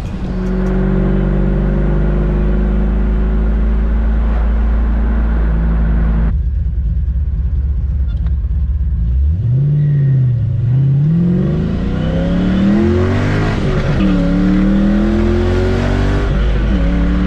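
V8 car engine running at a steady pitch for about six seconds, then after an abrupt change being revved again and again, its pitch rising and falling repeatedly.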